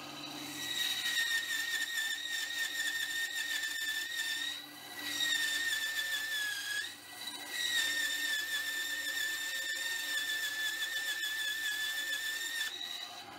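Bandsaw blade cutting through a block of aluminium: a steady high-pitched squeal that starts about half a second in, breaks off briefly twice around the middle, the second time just after sagging slightly in pitch, and stops shortly before the end.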